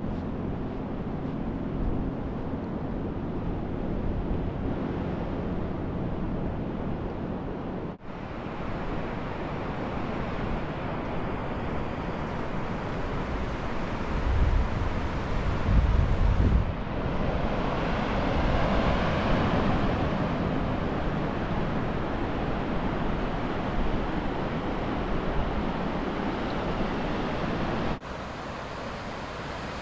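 Ocean surf washing onto a beach with wind gusting against the microphone, the low buffeting loudest about halfway through. The sound shifts abruptly about eight seconds in and again near the end.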